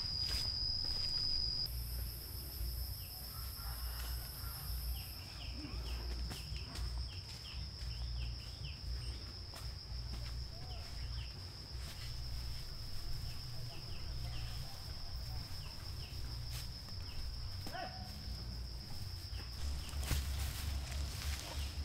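Outdoor ambience: a steady high-pitched insect trill with scattered short bird chirps, over a low rumble and a few light clicks.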